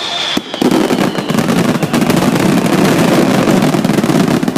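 Fireworks display: a dense run of rapid crackling cracks sets in about half a second in and keeps going. A fading, slowly falling whistle is heard at the very start.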